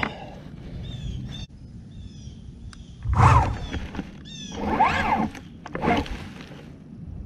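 A hurt rider groaning in pain three times, about three, five and six seconds in, after a crash. Small birds chirp in the background.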